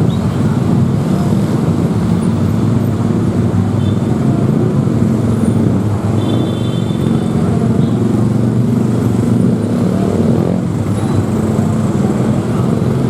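Road traffic: steady, loud running of heavy vehicle engines passing close by.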